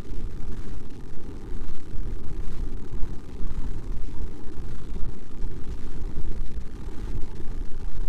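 Wind buffeting an outdoor camera microphone: a loud, gusty low rumble with no distinct events.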